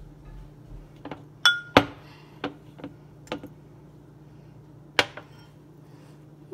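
Glass mixing bowl and metal wire whisk clinking together as they are handled. There are several sharp clinks in the first half, the loudest about two seconds in, one with a brief glassy ring, and one more about five seconds in.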